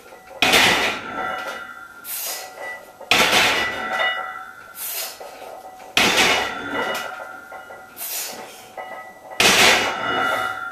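A lifter breathing hard through a set of barbell bench press reps, a sharp exhale about every three seconds with quicker breaths between.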